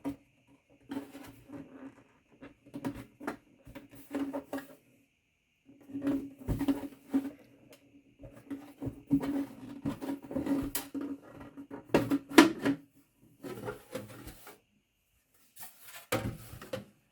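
Hands opening a product box and unpacking its contents: irregular rustling, scraping and clicking of packaging being handled, with a couple of brief pauses.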